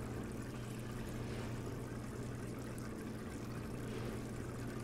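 Air bubbling steadily through aerated culture bottles, over a steady low hum.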